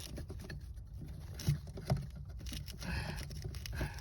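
Faint scattered clicks and knocks of hands and a tool working at the plastic brake light switch connector and wiring under the dashboard, trying to pry it loose.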